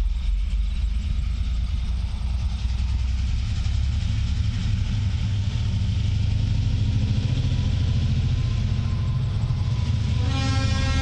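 TasRail DQ-class diesel locomotives of a loaded ore train working hard as they approach, a steady low engine rumble. About a second before the end the lead locomotive's horn starts to sound.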